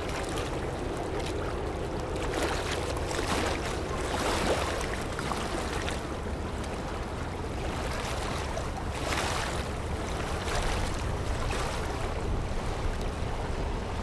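Wake waves from a passing container ship washing against the riverbank, coming in surges of splashing water over a steady low rumble.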